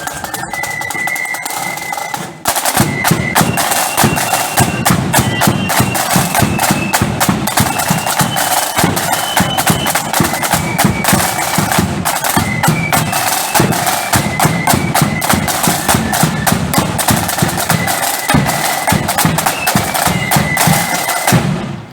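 A marching flute band playing: shrill flutes carry a melody over rattling snare drums and a bass drum. After a brief dip a couple of seconds in, the band plays on at full strength, and it stops just before the end.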